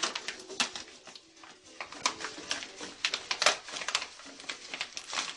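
Plastic packaging crinkling and rustling as it is handled and opened: a run of irregular sharp crackles and clicks.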